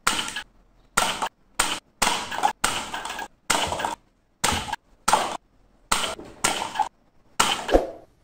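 Toy foam-dart submachine gun firing single shots: about a dozen sharp bursts, each a short hiss, spaced irregularly up to a second apart.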